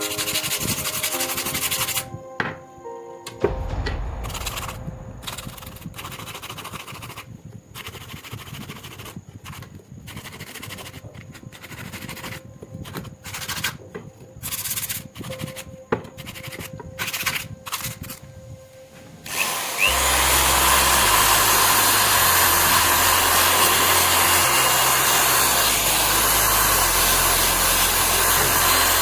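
Music for the first few seconds, then irregular scraping and rubbing strokes with short gaps. About 20 seconds in a power tool starts and runs steadily and loudly on the rusty steel shears.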